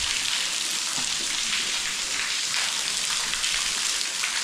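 Waterfall splashing: a steady hiss of falling water.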